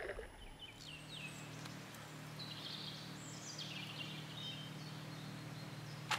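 Songbird singing: a few quick falling chirps, then a run of high notes stepping down in pitch, over a faint steady low hum.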